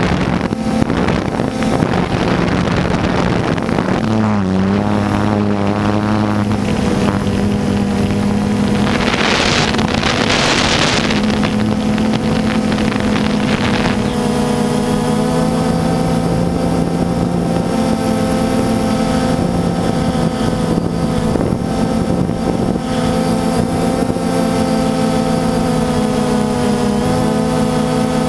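Multirotor drone's brushless motors and propellers humming steadily, picked up by the camera on the drone itself; the pitch shifts a few times as the throttle changes. Wind rushes across the microphone for a couple of seconds near the middle.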